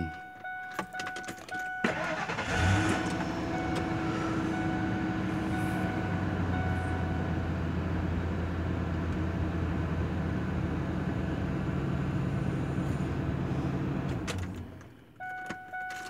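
2000 Ford Expedition's 5.4-litre V8 cranked and started with the key, catching about two and a half seconds in, then idling steadily at about 1,000 rpm until it is switched off near the end. A steady electronic dash warning chime sounds before the start and again after shut-off, with no clicking under the dash: the new ignition switch has cured the fault.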